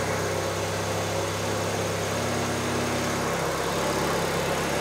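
Turbocharged Honda Civic's stock 1.6-litre SOHC D16Y4 four-cylinder idling steadily, moments after its first start on a new turbo kit. It is running very rich on a base map.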